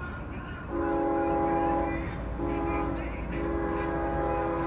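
Air horn of a CSX GE ES44AH diesel locomotive leading a coal train, blown as three blasts: a long one, a short one, then a long one held past the end. A steady low rumble from the passing train runs underneath.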